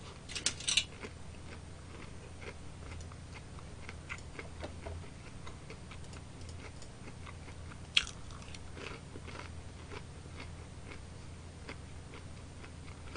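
A person biting and chewing a fried cheese ball with the mouth close to the microphone: a scatter of small crunchy clicks, with a sharp click about eight seconds in, over a faint low hum.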